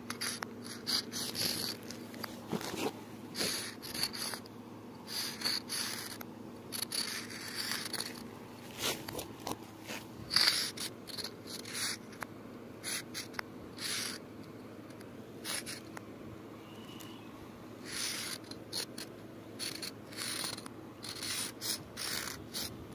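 Thick sidewalk chalk scraping on rough pavement in short, irregular strokes, about one or two a second, over a faint steady hum.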